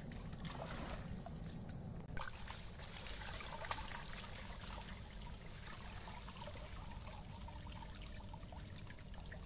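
Shallow stream water trickling and flowing around a woven bamboo fish trap, with small scattered clicks and rustles from the trap being handled.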